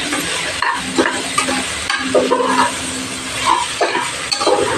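Diced vegetables sizzling in oil in a pressure cooker, stirred and turned with a metal ladle that scrapes against the pot.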